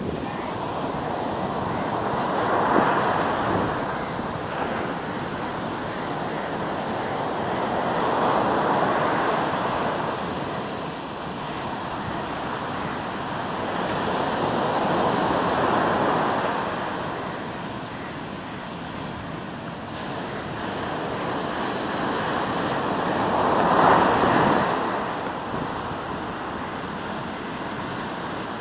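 Sea surf breaking on a beach: a steady wash of waves that swells and fades four times, each surge rising and falling over several seconds, the last the loudest.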